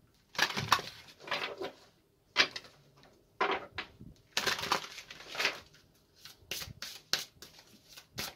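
A deck of oracle cards being shuffled by hand: a series of rustling swishes, then quicker short sharp snaps of the cards near the end.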